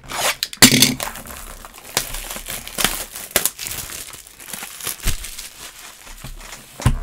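Plastic shrink wrap on a box of trading cards being cut and torn off, crinkling and crackling throughout. Several sharp clicks and knocks from the cardboard box are heard along the way, the loudest about half a second in.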